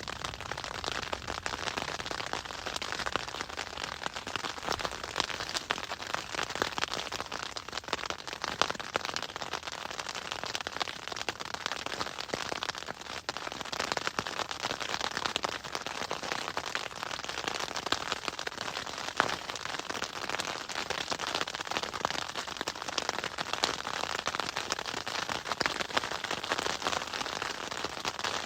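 Hail falling hard: a dense, continuous clatter of countless small hailstone impacts, with a few louder single strikes standing out here and there.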